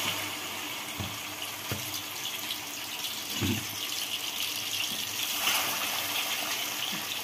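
Marinated chicken leg pieces sizzling in hot oil in a shallow pan: a steady frying hiss, with a few soft knocks as the pieces are laid in.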